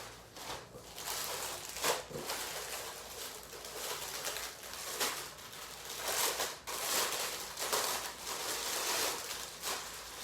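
Plastic packaging crinkling and rustling in irregular surges, with a few sharp clicks, as clothing items are pulled out of their bags.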